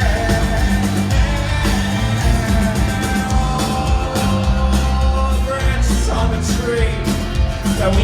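Live rock band playing loudly: electric guitars, bass and drums in a full, continuous mix, recorded from the audience.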